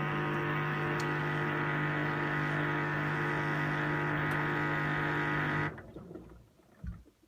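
LG F1495KDS direct-drive washing machine buzzing steadily during its wash cycle, a loud electrical-sounding drone that the owner has read points to a faulty recirculation pump. The buzz cuts off suddenly near the end, followed by a brief low thump.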